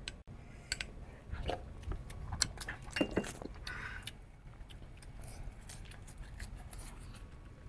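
Eating sounds close to the microphone: a scattering of short clicks and crunches from chewing, with light clinks of utensils or dishes.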